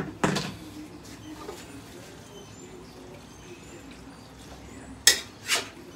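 A metal cooking utensil scraping and knocking in a steel wok as pieces of pork are stirred: a sharp stroke just after the start and two loud scrapes about five seconds in, with quieter background between.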